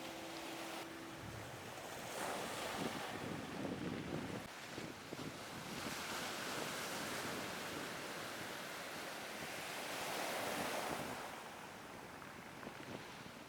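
Sea waves washing onto a shore, the surf swelling and fading several times.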